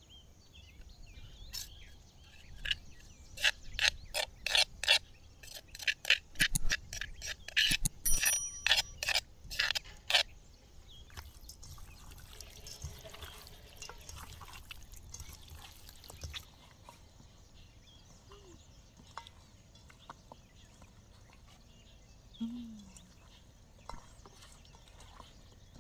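A quick run of about twenty sharp knocks on a hard kitchen surface, roughly three a second, like food being worked with a utensil. It is followed by several seconds of scraping and rustling, then a few faint knocks.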